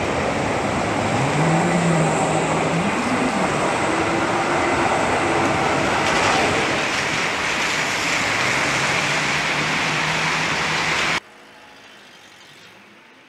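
Electric trams passing on wet rails in the rain: a steady rush of wheels, tyres and rain, with the traction motors' whine gliding up and down in pitch. About eleven seconds in the sound cuts suddenly to a much quieter patter of rain, with a tram's motor whine rising faintly near the end.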